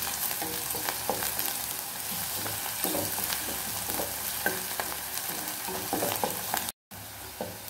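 Chopped onions and ginger-garlic paste sizzling in hot oil and ghee, stirred and scraped around the pan with a wooden spatula: a steady sizzle with scattered crackles and spatula scrapes. They are being fried until the raw smell of the paste is gone. The sound cuts out for a moment about seven seconds in.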